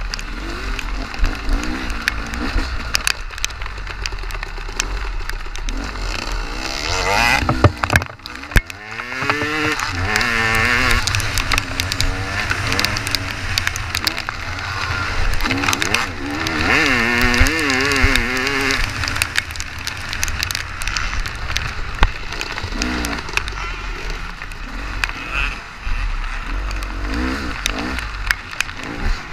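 Honda XR400 air-cooled four-stroke single-cylinder dirt bike engine racing off-road, its pitch rising and falling as the throttle is opened and closed, with two long pulls about a third and two thirds of the way through.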